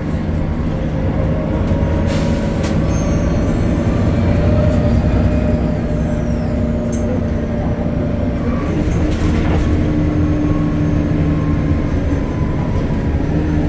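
BredaMenarini Avancity Plus city bus with its Deutz diesel engine and ZF gearbox running under way: a steady low drone, with a thin high whine that rises slightly and then falls away in the first half and a few brief knocks.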